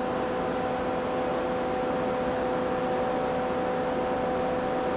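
Steady hum of powered-up shop machinery, with a constant mid-pitched whine over a low hiss and no change in pitch or level.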